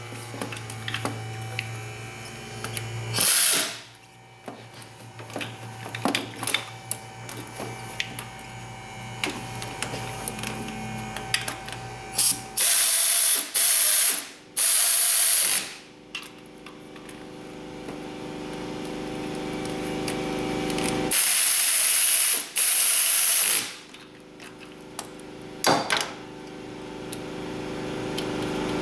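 Pneumatic air ratchet running in short bursts as it drives bolts in: one about three seconds in, three in quick succession around the middle, two more later and a brief one near the end. Small clicks of tools and parts being handled fall between the bursts.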